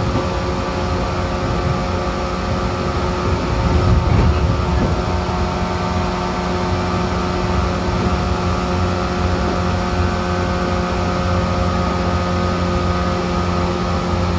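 Interior running sound of a JR 415 series EMU motor car, MoHa 415-507, moving at steady speed. The MT54 traction motors and gears whine at an even pitch over the rumble of wheels on rail, with a brief louder rumble about four seconds in.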